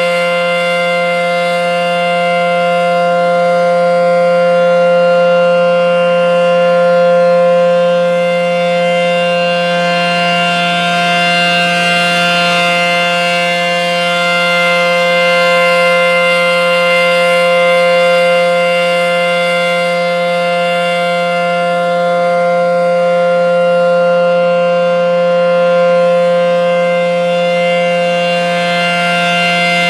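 ACA P-10 outdoor warning siren sounding at full speed, a steady chord of several pitches held without rising or falling. Its loudness swells and fades slowly.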